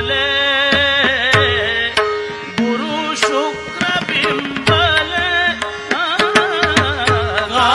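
Devotional gavlan music: tabla strokes beat a steady rhythm under a held drone note and an ornamented melodic line that bends and wavers in pitch.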